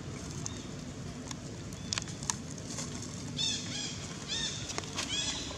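Short, high-pitched squeaking calls from a young long-tailed macaque, repeated in quick runs from about halfway through, each call rising and falling. A few sharp clicks come earlier.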